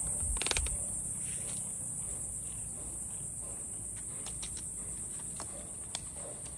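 Steady high-pitched shrill of insects. A brief scraping rattle comes about half a second in, and a single sharp click near the end.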